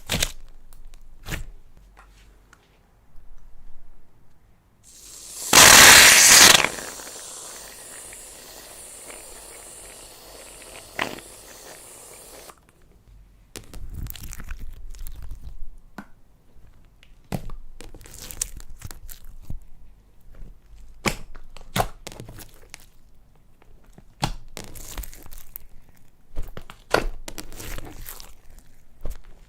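Slime being worked by hand, with irregular crackling pops and sticky tearing sounds as it is pressed and pulled apart. A much louder rustling burst, about a second long, comes about six seconds in.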